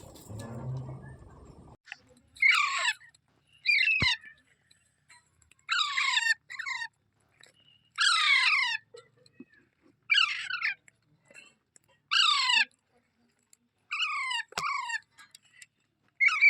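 Ringneck parrot squawking over and over: harsh calls that drop in pitch, one every one to two seconds, some in quick pairs.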